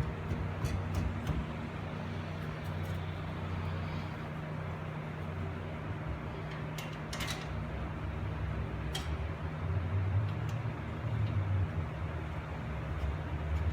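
Scattered light metallic clicks and knocks from hand tools and parts being handled during wheel bearing work, over a steady low hum. A brief cluster of clicks comes about seven seconds in.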